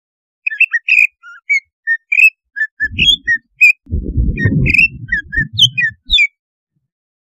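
Cucak ijo (green leafbird) singing a fast string of short, varied whistled chirps and trills, several a second, which stop about six seconds in. This is a pancingan song meant to make other cucak ijo fierce. A low rumble runs under the song from about three seconds in.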